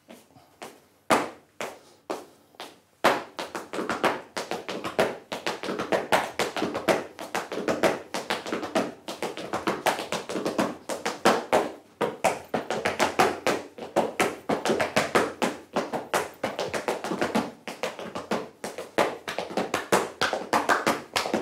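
Afro-Peruvian zapateo from Chincha: hard-soled shoes striking and scraping the floor in fast, rhythmic footwork, with cajón beats alongside. A few single taps open it, then from about three seconds in the taps run thick and fast.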